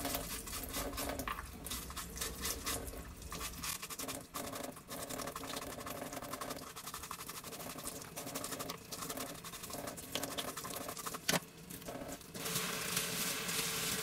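Toothbrush bristles scrubbing the pleated filter of a Deerma DX115C vacuum cleaner under a running tap, in quick repeated strokes. About twelve seconds in, the rush of water gets louder as the filter is rinsed by hand.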